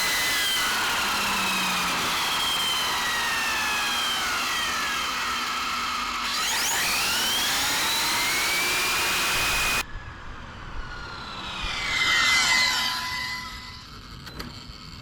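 Electric RC car flat out at top speed, about 73 mph, on a full-throttle speed run: a loud rush of wind and tyre noise, with the motor and gear whine sliding up and down in pitch. The loud rush cuts off suddenly about ten seconds in. After that it is quieter, and a brief swell of whining rises and fades.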